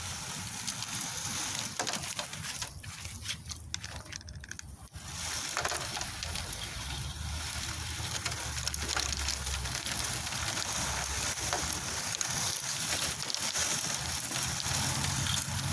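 A wire-cage roller nut gatherer rolled over grass and leaf litter: a steady rustling with many small scattered clicks as acorns are picked up.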